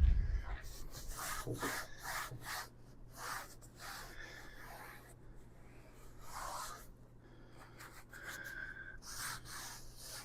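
Cloth rubbing in repeated, uneven strokes over a vinyl-covered case, wiping it clean. A low bump at the very start is the loudest sound.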